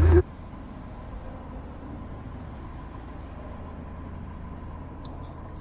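Narrowboat's diesel engine running steadily: a low, even hum with a faint steady higher tone over it.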